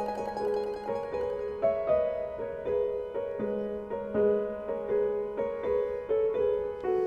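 Instrumental background music: a light melody of short, quickly repeated notes.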